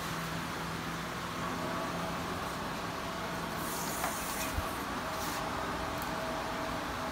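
Steady mechanical hum with hiss, a faint knock about four and a half seconds in and short bursts of hiss around four and five seconds in.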